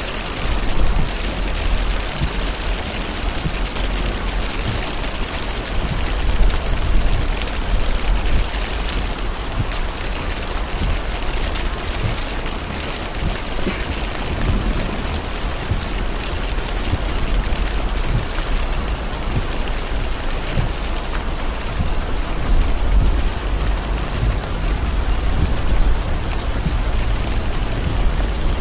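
Heavy rain falling on a car's windshield and roof, heard from inside the moving car, over a steady low rumble from the car on the wet road.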